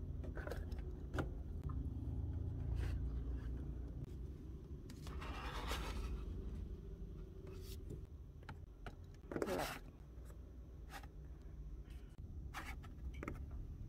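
Handling noise as merchandise is moved around and set down on a shelf: scraping and rubbing with a few light knocks, over a low steady hum. There are longer rubs about five seconds in and, loudest, about nine seconds in.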